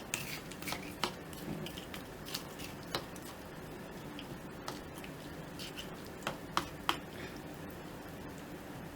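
Faint, scattered clicks and taps of a plastic microwave pasta container and its lid being handled and fitted.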